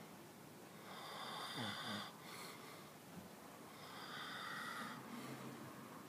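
A sleeping man snoring through his open mouth: two long snores about three seconds apart, the first ending with a short falling rasp.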